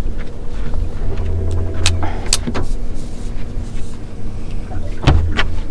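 Electric trolling motor humming steadily, holding the boat in place on spot lock, with a few sharp knocks about 2 s and again about 5 s in.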